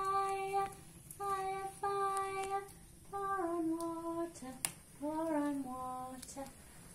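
A high voice singing a slow tune in long held notes, phrase by phrase with short gaps between, the later phrases gliding downward. There is a single sharp click about four and a half seconds in.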